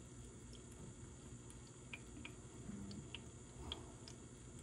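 Quiet room tone with a few faint, scattered small clicks and a brief low hum about two and a half seconds in.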